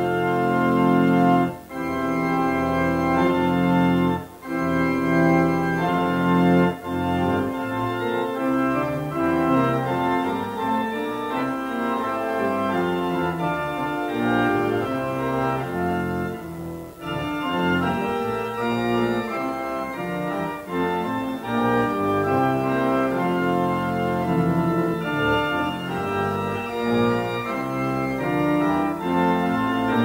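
Church organ played as a full, many-voiced piece, sustained chords moving from one to the next, with a few brief breaks between phrases.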